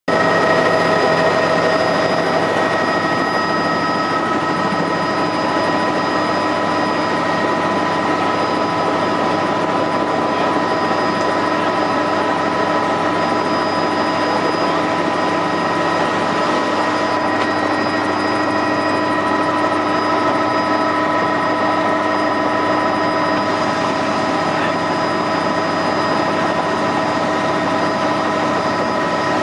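Helicopter running steadily: loud, even engine and rotor noise with a steady whine over it.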